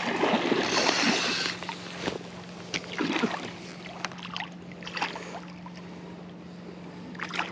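Water splashing and sloshing in irregular bursts over a steady low hum, which stops near the end.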